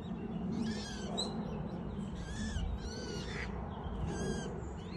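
Waterfowl calling: a series of short, high-pitched calls, about five spread over the few seconds.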